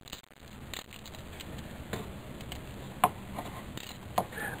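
Socket extension and wrench clicking against metal while the replacement spark plug is tightened into its thread-repair insert in the cylinder head: a handful of sharp, irregularly spaced clicks, the loudest about three seconds in.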